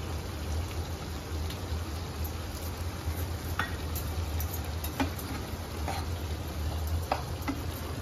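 Chhole (chickpea curry) simmering and sizzling in a pan, with a steady low hum underneath. In the second half a steel ladle clinks against the pan four or five times as the curry is stirred.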